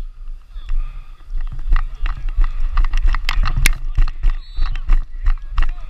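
Footfalls of a player running, jolting a helmet-mounted camera in a quick even rhythm of thuds, about three or four a second, over low wind rumble on the microphone.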